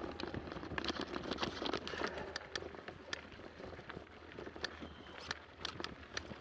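Mountain bike rolling down a rough dirt-and-stone trail: tyre noise with many irregular clicks, knocks and rattles as the bike goes over bumps. The tail of background music fades out at the very start.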